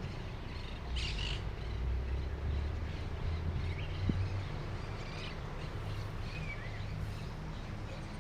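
Wild birds calling outdoors: a handful of short chirps, a second or two apart, over a low steady rumble.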